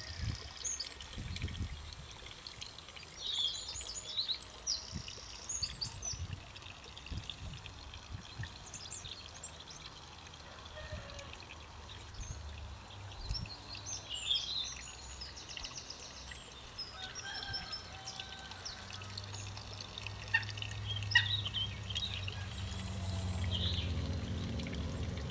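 Several garden songbirds singing and calling, with short chirps and trills throughout. Under them runs a low rumble that grows louder over the last few seconds.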